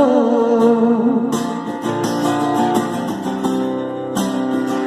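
Song with acoustic guitar accompaniment: a held sung note trails off in the first second, then the guitar plays on alone between sung lines.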